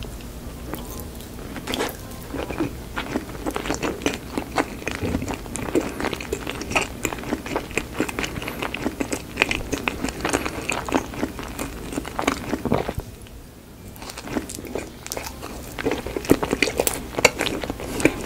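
Close-miked chewing of one large mouthful of baked avocado with egg and bacon: a quick, dense run of soft, wet mouth sounds and smacks, easing off briefly about two-thirds of the way through before picking up again.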